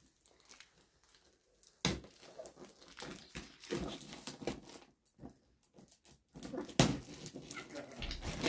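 Cardboard packaging and a clear plastic bag being handled: scattered rustling and scraping with two sharp knocks, one about two seconds in and one late, and crinkling of the plastic wrap near the end.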